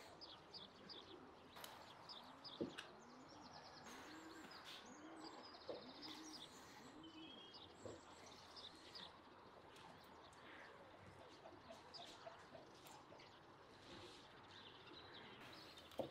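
Faint birdsong: a dove cooing a series of low, evenly spaced coos, with small birds chirping high above. A few light knocks of a knife on a wooden cutting board, the sharpest about two and a half seconds in.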